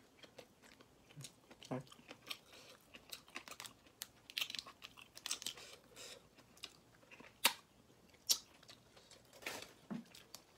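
Close-up eating sounds of spicy cooked crayfish: chewing and sucking, with the shells crackling and snapping as they are pulled apart by hand. Scattered sharp clicks, the loudest two a little after the middle.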